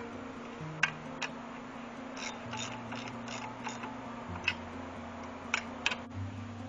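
A handful of sharp metallic clicks and taps, spread across the few seconds, from handling and adjusting the chainsaw mill's frame, over quiet background music with a slow-changing bass line.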